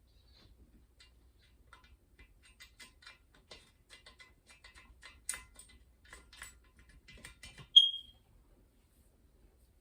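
Small metallic clicks and ticks of a hand tool working the bolts that fasten the spin bike's handlebar post, a few to several a second. About eight seconds in comes a sharp metal clink that rings briefly.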